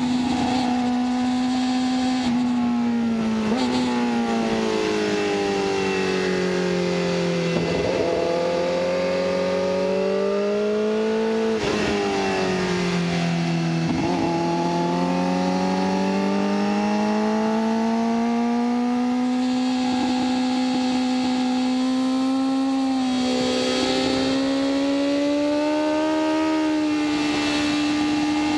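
BMW S1000RR's inline-four engine at speed on a track. Its pitch falls as the bike slows for a corner, dips and recovers once more with a few brief sharp cracks, then climbs steadily as it accelerates out. Wind noise rushes underneath.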